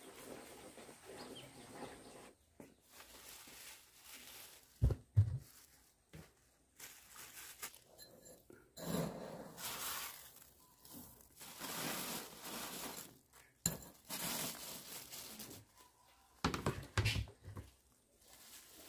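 Household handling sounds: two sharp knocks about five seconds in, then several stretches of scraping, hiss-like noise lasting a second or two each.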